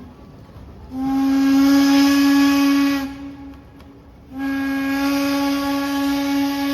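Steam locomotive whistle blowing two long, steady blasts. The first begins about a second in and lasts about two seconds; the second starts a little over a second later and is held on.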